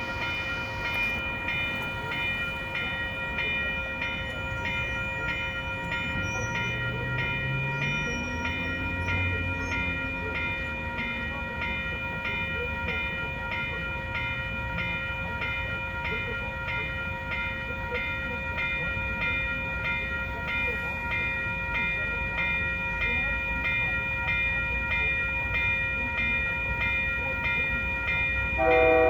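A warning bell rings fast and steadily over the low rumble of a train. Just before the end, the cab car's multi-note air horn comes in, louder than everything else.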